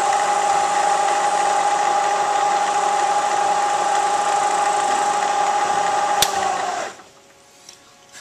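Milling machine spindle running with a steady whine while a finish end mill takes the last light cut on a flat of a hex part. A click, then the machine stops about seven seconds in.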